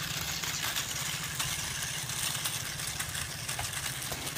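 Toy RC car's small electric drive motors and gears whirring steadily as it drives over rough, clumpy soil, over a steady hiss.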